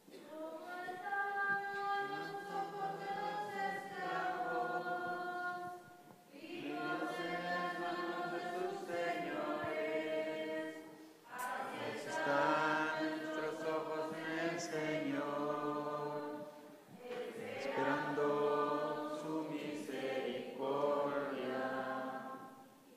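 A congregation singing a hymn without accompaniment, in four phrases of about five seconds with short breaks for breath between them.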